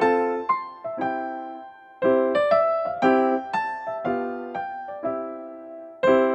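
Background music: a light piano or electric-piano tune, notes struck in short phrases and left to ring, with a brief dip about two seconds in.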